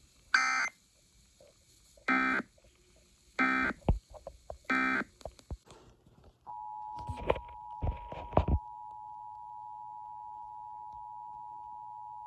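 Emergency Alert System data tones: four short buzzy bursts about a second and a half apart, the end-of-message code closing the thunderstorm warning. After a few clicks and knocks, the steady two-tone EAS attention signal starts about six and a half seconds in and holds.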